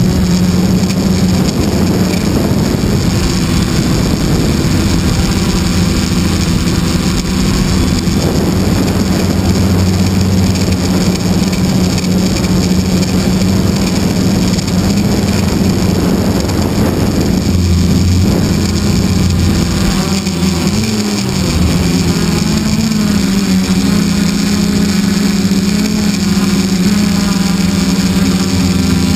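Multirotor drone's electric motors and propellers buzzing steadily, heard up close from the camera mounted on it; the pitch dips briefly and comes back up about 21 seconds in.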